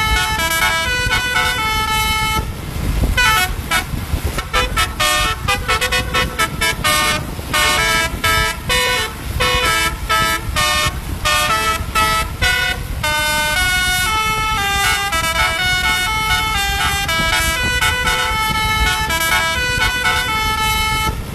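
Bus telolet horn, a set of multi-tone horns playing a tune as a run of notes that jump from pitch to pitch. The notes come short and choppy through the first half and are held longer in the second half.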